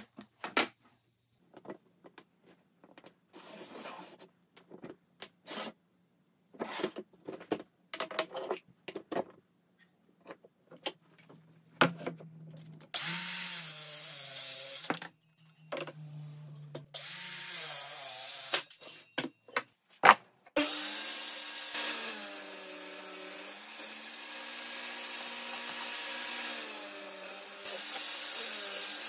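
Light clicks and knocks of wooden slats being handled, then a handheld circular saw cutting a board in two runs, its motor pitch dipping under load. From about two-thirds of the way in, a table saw runs steadily, its pitch dipping briefly as wood is fed through the blade.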